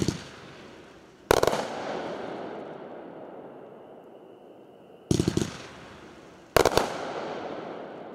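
Aerial fireworks bursting: a quick rattle of bangs right at the start, a single loud bang about a second in, another rattle of bangs at about five seconds, and a bang soon after. Each is followed by a long fading echo.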